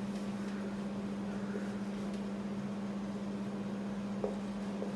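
Steady low-pitched hum over faint room noise, with a single faint tap about four seconds in.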